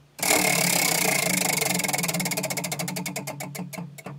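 Prize-style spinner wheel spun by hand, its pegs flicking past the pointer in a rapid ticking that slows and thins out until the wheel comes to rest about four seconds in.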